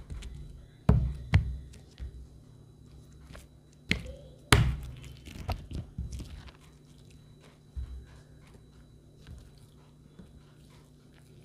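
Homemade glue slime being played with by hand for ASMR: a run of irregular sharp pops and slaps, the loudest a little under halfway, thinning out to sparse, quieter clicks in the second half.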